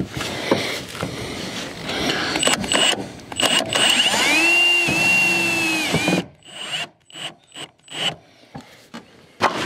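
Cordless drill driving a screw into corrugated steel wall cladding: the motor runs steadily for about two seconds, rising in pitch as it starts and dropping as it stops, then gives about six short bursts near the end. Clicks and knocks of handling the sheet and tool come before.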